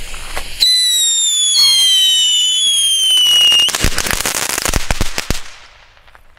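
Komet Blitzgewitter whistle fountains going off: two loud whistles, each gliding slowly down in pitch, overlap for a couple of seconds and cut off together, then a rapid burst of crackling pops follows and dies away after about a second and a half.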